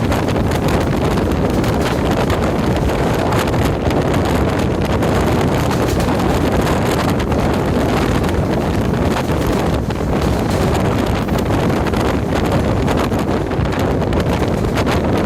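Diesel multiple-unit train running at speed, a steady loud rush of running noise with wind buffeting the microphone.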